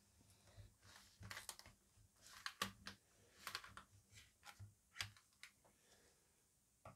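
A small folding knife slitting open product packaging, heard as faint, irregular clicks and short scrapes as the blade cuts and the package is handled.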